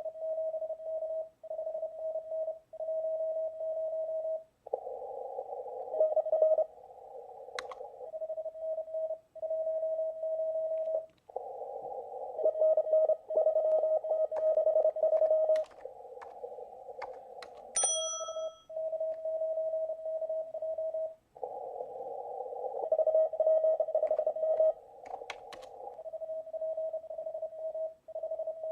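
Morse code on a ham radio receiver: a single mid-pitched tone keyed on and off in dots and dashes. Some stretches are clean and others sit in band hiss. A few sharp clicks are heard, and a short high beep comes about 18 seconds in.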